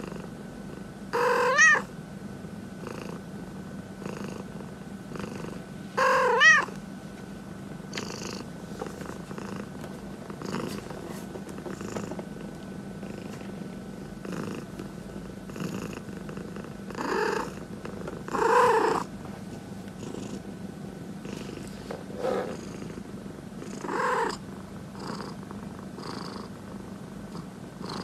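Domestic cat purring steadily, with a few short meows over it; the two loudest come about a second and six seconds in.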